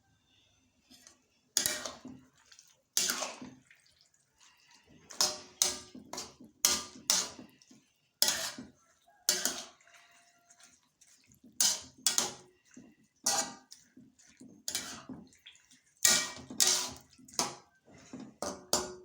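A spoon clinking and scraping against a dish of food, about twenty irregular strikes, each with a short ring.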